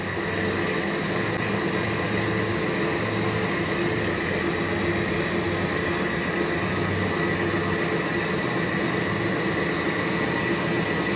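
Metal lathe running steadily as it turns a rifle barrel for chamber reaming, with cutting oil pouring over the work: a steady machine whine over a low hum that swells and fades.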